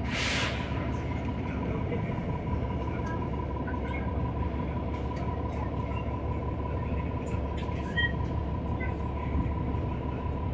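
Inside a 2019 New Flyer XD40 city bus under way: the steady low rumble of its Cummins L9 inline-six diesel engine and road noise, with a faint steady whine. A short hiss of air comes right at the start.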